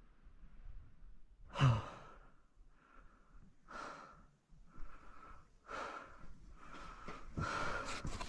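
A person breathing heavily close to the microphone, a breath roughly every second starting about one and a half seconds in.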